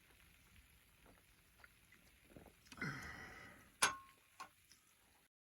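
Faint clicks and knocks of things being handled, with a short rustling burst about three seconds in and one sharp clink with a brief ring just before four seconds; the sound cuts off abruptly near the end.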